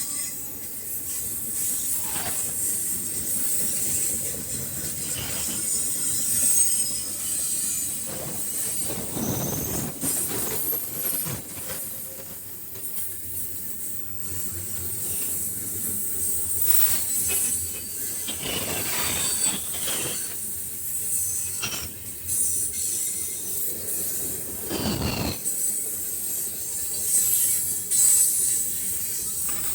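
Freight train of boxcars rolling past with a continuous high-pitched wheel squeal and rattle, broken by a few louder clanks along the way.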